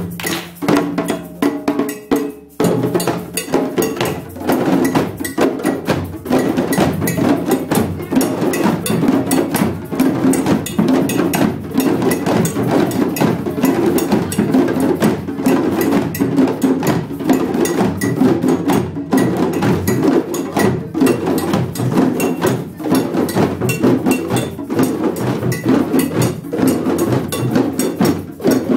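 An ensemble of djembes played by hand, many drums striking together in a busy, steady rhythm. There is a brief break about two and a half seconds in.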